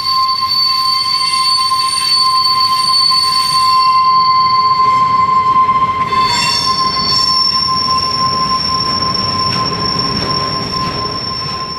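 Freight train cars rolling slowly past with steady high-pitched wheel squeal over the rumble of the wheels; about six seconds in the squeal shifts, a higher tone taking over.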